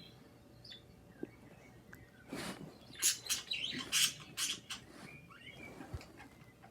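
Pet birds chirping, with a few faint chirps at first, then a quick run of short, sharp, high calls a little past two seconds in, and a faint whistled glide near the end.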